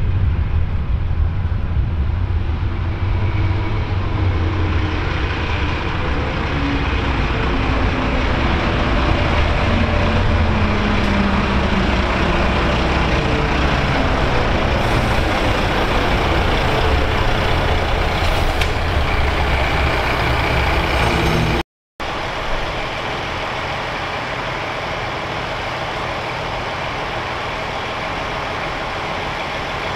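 A train passing close by: a heavy low rumble with a whine that falls in pitch. The sound cuts off abruptly about twenty seconds in, and a quieter, steady rumble follows.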